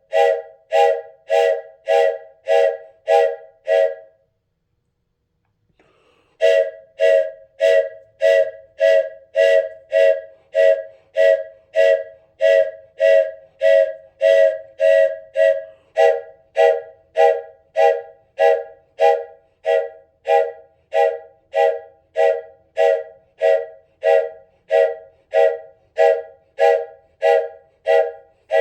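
Wooden train whistle sounding in short, evenly spaced toots, about two a second, each toot a chord of several close tones. About four seconds in it breaks off for about two seconds, then resumes at the same steady rhythm.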